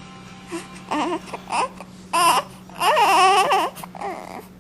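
Baby vocalizing: a series of short cry-like calls with wavering pitch, the longest and loudest about three seconds in.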